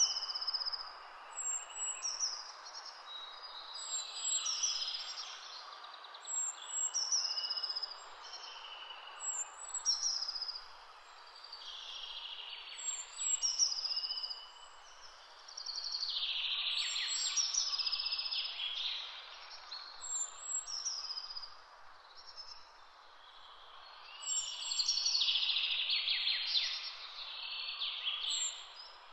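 Several songbirds singing in woodland in short repeated phrases, louder and busier twice in the second half, over a steady hiss.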